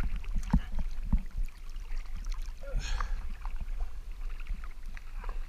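Sea water lapping and sloshing around a camera riding at the surface, with a steady low rumble of waves and small scattered splashes.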